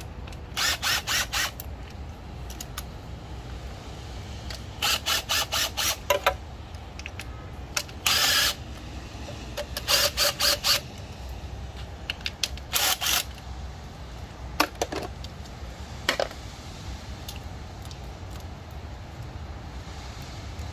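Cordless impact driver on a socket extension run in five short bursts, most of them rapid stuttering pulses, backing out bolts on a Toyota 2JZ-GTE engine, followed by a few single clicks.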